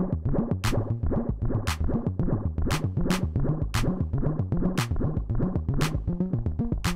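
Live electronic music from a Teenage Engineering OP-Z, a Make Noise 0-Coast semi-modular synth and a Rakit Metal module: a fast-stepping synth bass line under a steady drum-machine beat of sharp, hi-hat-like ticks.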